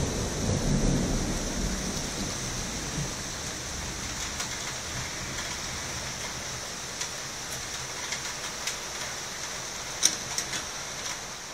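Thunder rumbling low and dying away over the first few seconds, over the steady hiss of heavy rain. A few sharp clicks come in near the end, one louder than the rest.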